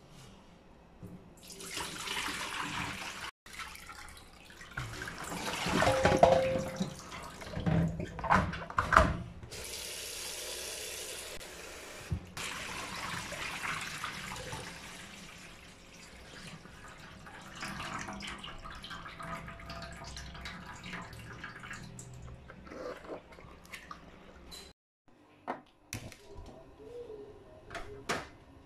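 Tap water running and splashing into a plastic colander of chopped spinach in a stainless steel sink as the leaves are rinsed and swirled. There are a few louder splashes and knocks between about six and nine seconds, and the water sound stops near the end.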